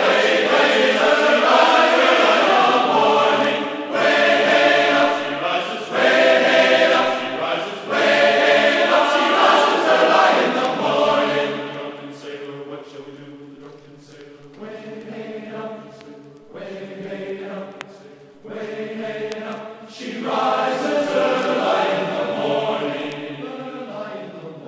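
Recorded choral singing: a group of voices singing a song in harmony, dipping quieter for several seconds in the middle before swelling again.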